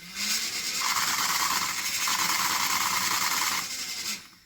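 Nerf Ultra Speed's motor-driven piston feeder running, its small gearbox motor cycling the dart-pushing piston rapidly. It runs steadily for about four seconds, then stops.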